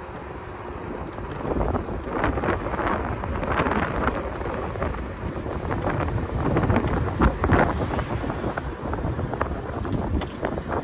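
Wind buffeting the microphone of a moving electric scooter, rising and falling in gusts, over rumble from its tyres on the road.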